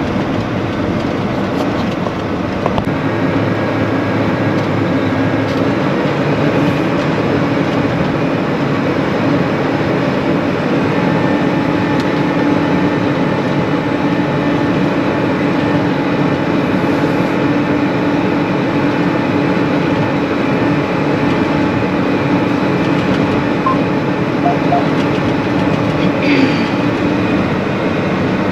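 Combine harvester running steadily: a loud, even mechanical drone with a constant hum.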